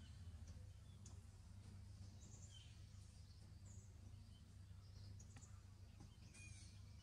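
Near silence: quiet outdoor ambience with a steady low hum and a few faint bird chirps scattered through it.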